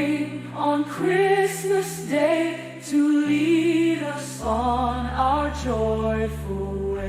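Closing bars of a Christmas song: long held sung notes with vibrato over sustained chords and a low bass, the notes changing about once a second.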